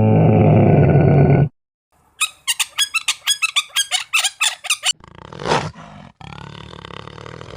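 A series of separate wild animal calls spliced together: a deep, low call at the start, then a rapid run of sharp chattering pulses, about five a second, then a short call and a steady rasping call near the end.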